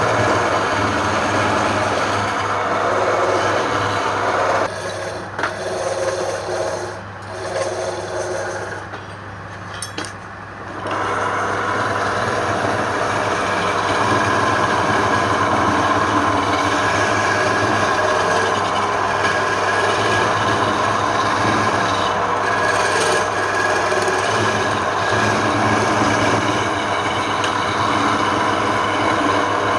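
Wood lathe running with wood being worked on the turning piece: a steady motor hum under a loud working noise. The working noise drops away for several seconds about five seconds in, while the motor keeps running, then resumes.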